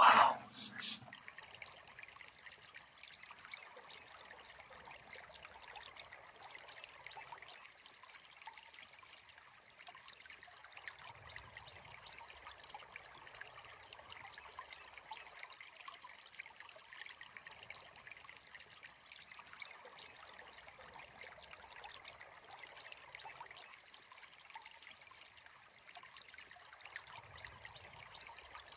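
A small stream trickling steadily and faintly.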